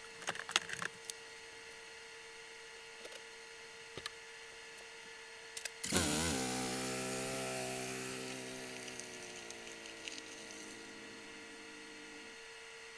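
A few light clicks, then a BMW E90 xDrive's engine starts about six seconds in. It catches with a brief rise in revs, then settles and slowly drops in pitch toward idle, getting quieter.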